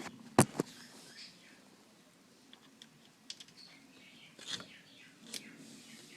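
Small clicks and taps of hands and a tool working on an airsoft AEG's pistol grip while its motor plate is being tightened: two sharp clicks about half a second in, then scattered faint ticks.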